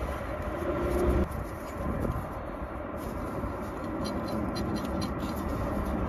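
Gloved hands working a plastic wiring connector and its clip on the O2 sensor harness: small rustles, with a run of light clicks in the second half. A low steady rumble sits underneath.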